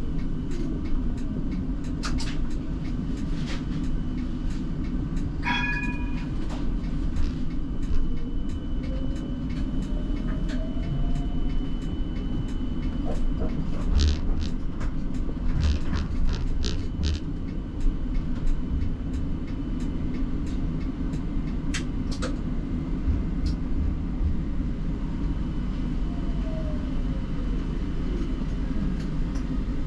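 Siemens Combino tram running on street track: a steady rumble of wheels on rails with scattered clicks and knocks. Its electric traction motors whine, rising in pitch around ten seconds in as it speeds up and falling near the end as it slows. A brief ringing tone sounds about five seconds in.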